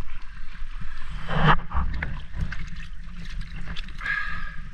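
Wind rumbling on a head-mounted action camera's microphone over water lapping against an inflatable boat's tube, with scattered small knocks and a louder swish about a second and a half in.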